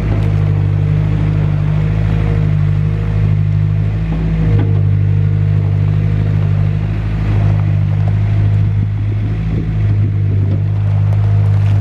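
Mustang 940E skid steer's Yanmar diesel engine running steadily at a constant speed, a loud, even low drone.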